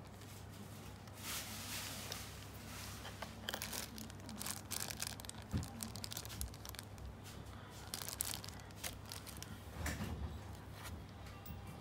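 Clear plastic packaging bags crinkling and rustling as gloved hands handle the parts, an irregular run of crackles with a sharper click about halfway through.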